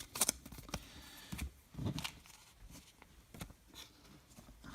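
Baseball trading cards being handled and flipped: a handful of light clicks and soft scrapes of card stock, spread out, with quiet room tone between.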